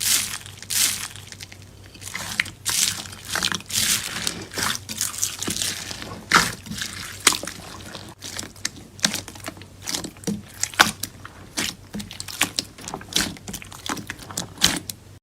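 Slime being squished and poked by hand, giving a quick, uneven run of sharp sticky clicks and pops with wet squelching.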